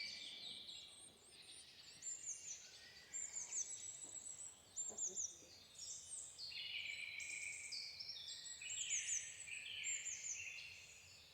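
Several wild birds chirping and singing at once, faint, with many short high calls that slide downward in pitch, overlapping one another and fading near the end.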